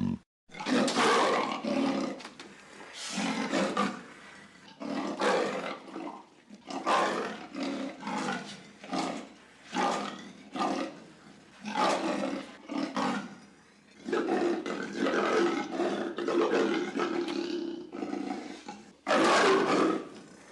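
Animated-film sound effects of a pack of street dogs roaring in a chase: a string of short, fierce bursts about a second apart, a longer held one about fourteen seconds in, and a loud burst near the end.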